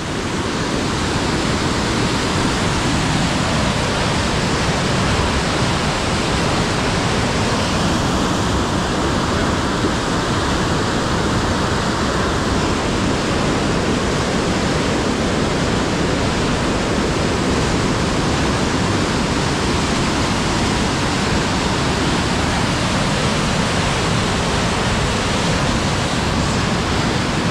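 Steady rush of water pouring out through an open sluice gate of a river weir into churning white water below.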